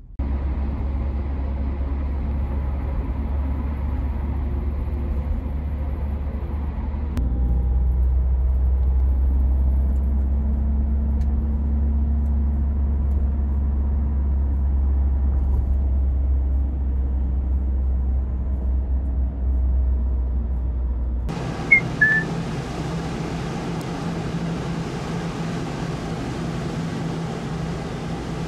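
Low, steady rumble of a taxi driving, heard from inside the cabin, growing louder about seven seconds in. About twenty-one seconds in it gives way to a steady outdoor hum and hiss, with two short high chirps just after.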